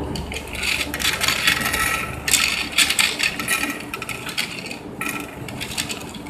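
Small plastic Mastermind code pegs clattering and clicking against each other as they are poured and handled. The clatter comes in two dense runs in the first half, then thins to scattered clicks.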